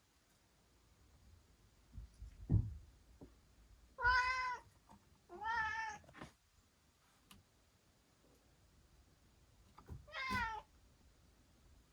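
A young cat meowing three times: two short meows about four and five and a half seconds in, and a third near the end. A soft low thump comes a couple of seconds in.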